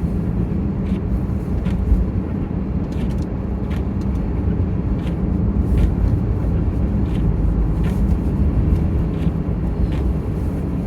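Steady low drone of a car's engine and tyres heard from inside the cabin while driving, with faint, irregular light ticks over it.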